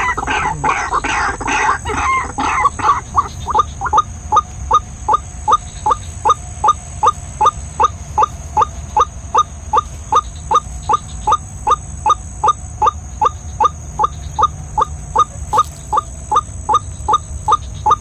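White-breasted waterhen (ruak-ruak) calls: a long, very even series of short rising 'kwak' notes, about two to three a second. In the first couple of seconds the calls are louder and crowded together, then they settle into the steady beat.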